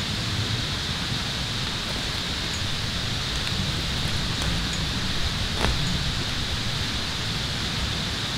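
Steady outdoor hiss with a low rumble underneath and no change in level, with a single faint tick about five and a half seconds in.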